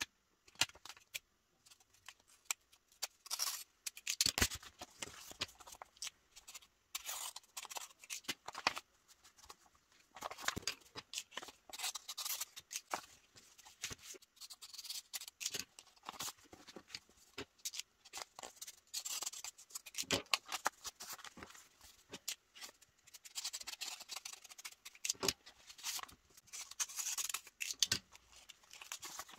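Paper mail being handled and opened by hand: irregular scratchy rustles and crinkles of envelopes, cards and tape in short bursts with brief quiet gaps.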